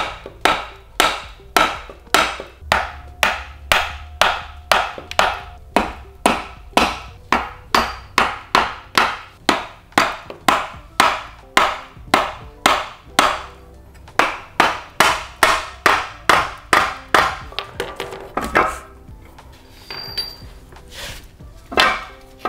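Repeated hammer blows on a Volvo 2.5T five-cylinder engine block, about two or three a second, knocking the block and its lower crankcase apart. The strikes stop after about 18 seconds, and a couple more come near the end.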